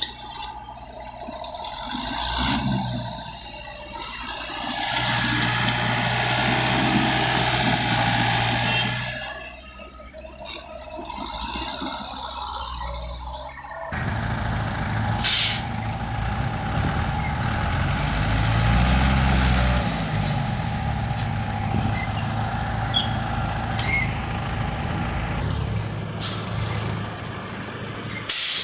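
Diesel engines of a Doosan mini excavator and a small dump truck running under work, with a steady whine over the engine note. About halfway through the sound changes suddenly. Later the engine pitch rises and falls once, and there are a couple of short sharp hisses.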